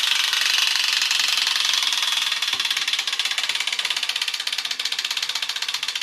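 Clockwork spring motor of a Wilko wind-up toy shark running down: a fast, buzzing rattle of gear and ratchet clicks that drives its flapping tail. The clicks slow and grow more distinct toward the end as the spring unwinds.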